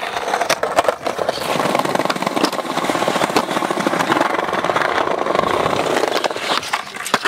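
Skateboard wheels rolling and grinding over concrete, a steady rumble broken by sharp clacks of the board.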